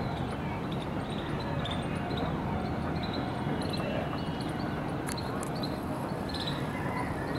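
Steady city background noise with a low rumble like distant traffic, and short high chirps repeating again and again over it.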